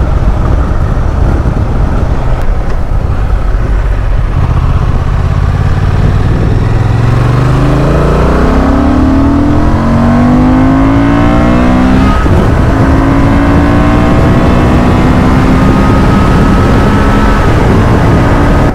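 Honda XL750 Transalp's parallel-twin engine accelerating on the road, its note climbing for a few seconds, then holding a steadier pitch from about twelve seconds in and fading near the end. Heavy wind rush on the rider's microphone runs under it.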